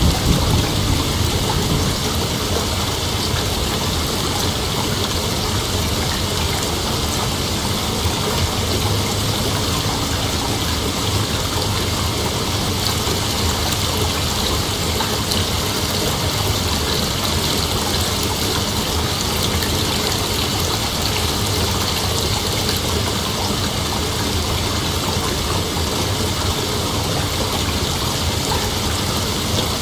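Steady rain ambience: an even, dense hiss with no breaks, and the tail of a low thunder rumble fading out in the first second.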